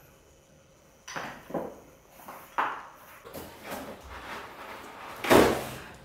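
A string of short knocks and clatter about a second apart, the loudest a little past five seconds in: household handling noise around a dinner table.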